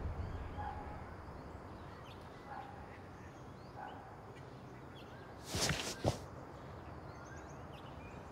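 Quiet outdoor ambience with faint bird chirps. About two-thirds of the way in comes a short rustling burst ending in a sharp click, as the plush chicken mascot head is pulled off.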